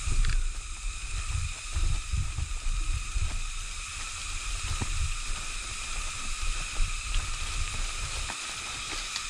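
Wind buffeting the microphone in uneven gusts that ease off near the end, over a steady high-pitched hum of several tones.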